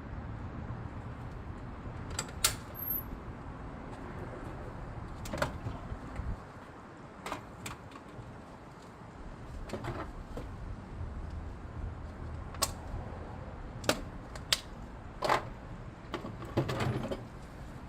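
Scattered sharp clicks and knocks of hand tools and metal gate-latch hardware being handled, about a dozen irregular taps over a steady low background rumble.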